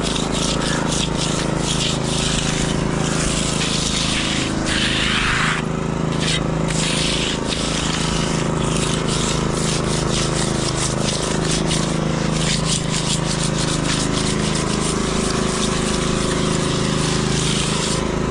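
Steel trowel scraping and rubbing over a wet concrete slab in repeated strokes, working cream into sandy spots on the surface, with an engine running steadily underneath.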